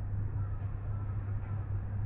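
Scooter engine running steadily, a constant low hum.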